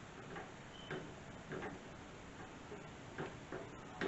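Spatula knocking and scraping against a ceramic-coated skillet while thick tomato sauce is stirred: faint, irregular knocks about one or two a second.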